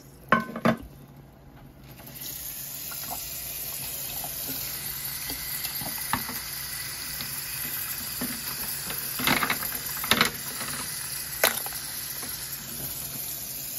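Tap water running into a stainless steel bowl of ice cubes, the steady splashing starting about two seconds in, with a few sharp clinks of ice against the bowl.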